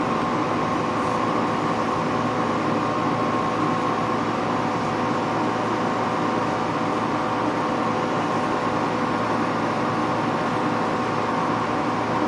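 Nakatomi MAC-20 portable spot air conditioner running in dehumidify mode: a steady fan rush with a compressor hum and several steady tones, unchanging throughout.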